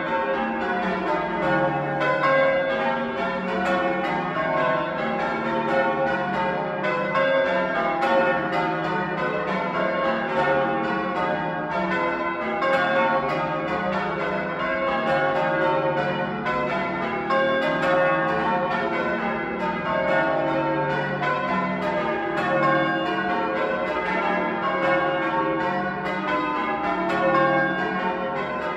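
Chew Magna's ring of eight church bells, including two Bilbie bells newly back from restoration, being rung in changes: a steady, continuous stream of bell strikes, one after another.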